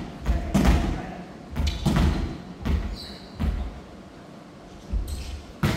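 Volleyball struck back and forth in passing: a series of separate hollow thumps of the ball off players' forearms and hands, echoing in a large gymnasium.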